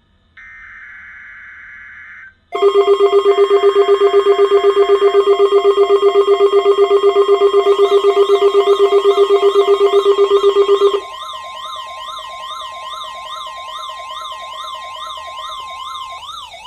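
Emergency Alert System weekly test: a short buzzing burst of digital header data ends, then a loud alert tone pulses rapidly. About eleven seconds in, it switches to a quieter siren-like wail sweeping quickly up and down in pitch.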